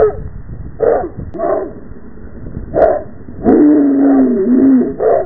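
Dog barking: a few short barks, then one long drawn-out howling bark about three and a half seconds in, and another short bark near the end.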